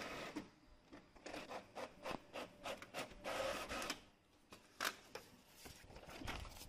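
Epson L6490 ink-tank inkjet printer printing a test page: its mechanism runs in a quick series of short strokes, then gives a sharp click about five seconds in.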